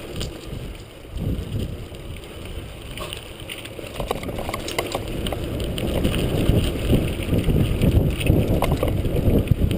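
Wind rushing over the microphone of a moving bicycle, with low rumble and a few clicks and rattles; it grows louder from about halfway through.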